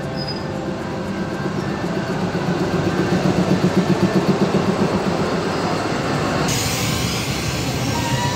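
Alsthom diesel-electric locomotive and its train passing close by: a heavy engine rumble with a fast pulsing beat of about five pulses a second. About two-thirds through it gives way to a hissing rush of steel wheels on the rails, with a faint high squeal near the end.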